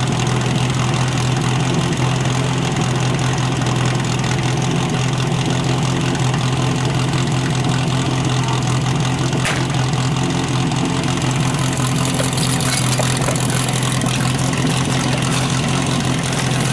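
Portable fire pump's engine running steadily at a constant pitch. A short sharp sound cuts in about nine and a half seconds in.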